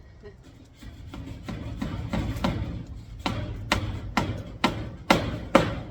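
Six sharp knocks in quick succession, about two a second, getting louder, after a stretch of rubbing and handling noise.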